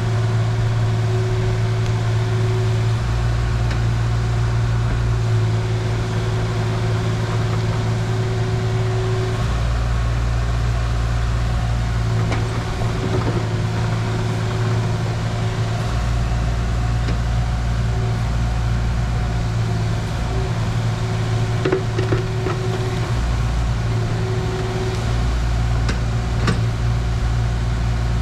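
Kubota KX040-4 mini excavator's diesel engine running steadily under working load while digging, with a few faint knocks.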